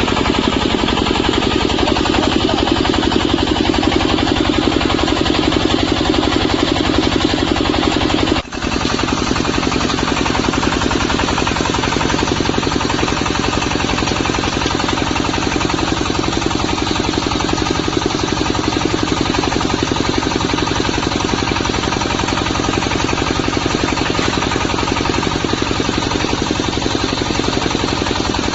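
Diesel engine of a portable water-well drilling rig running steadily under load, with a fast, even pulsing, broken once for a moment about eight seconds in.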